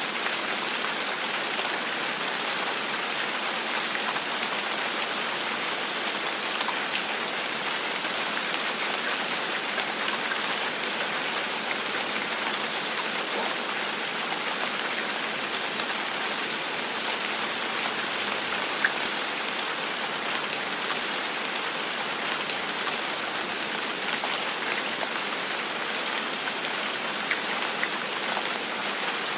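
Steady gentle rain falling, an even hiss with scattered individual drops ticking, one a little louder about two-thirds of the way through.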